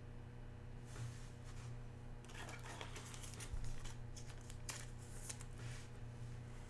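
A trading card being slid into a clear soft plastic sleeve: faint crinkling and scratching of thin plastic that starts about a second in and is busiest in the middle.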